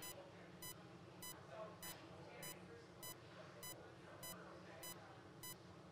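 Bedside patient monitor beeping steadily, short identical beeps at about three every two seconds, the pulse tone keeping time with the patient's heartbeat. Faint low voices and a steady room hum sit underneath.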